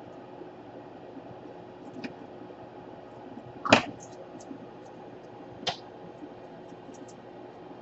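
Sharp clicks over a steady background hum: a small one about two seconds in, a loud snap a little under four seconds in and a weaker one near six seconds, with faint ticks between.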